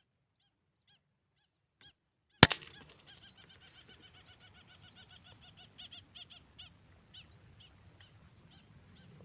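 Faint scattered bird calls, then a single sharp crack about two and a half seconds in, followed by a bird calling in a rapid chattering run of short notes, several a second, that slows and thins out toward the end.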